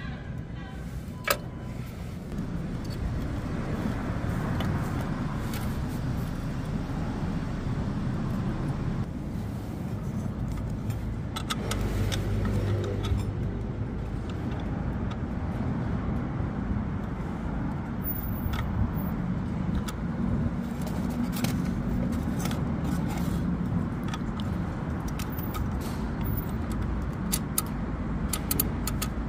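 Small engine of a Hanil farm carrier running steadily, with a few scattered clicks and knocks.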